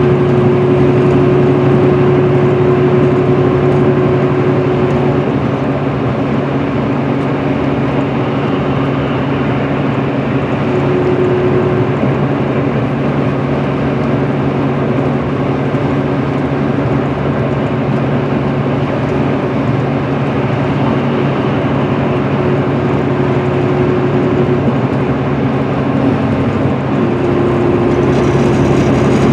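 Steady drone of a 2010 MCI D4500CL coach's Cummins ISM diesel engine, with tyre and road noise, cruising at highway speed, heard from inside the passenger cabin. The engine's low hum and a higher steady tone hold constant, with no gear changes.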